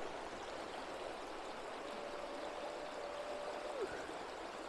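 Shallow, low-water river running over stones: a steady rush of water. About two seconds in, a faint thin whistle holds one pitch for about two seconds and then drops away.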